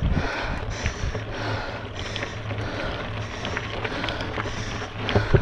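Mountain bike ridden up a dirt climb: a steady rumble of tyres and wind on the camera, with small gravel clicks and a hiss that swells and fades about every two-thirds of a second.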